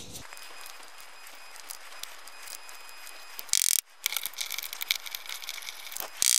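Hard plastic chainsaw housing parts being handled on a workbench: scattered clicks and rattles over a low hiss. There is a short loud noise about three and a half seconds in and another near the end.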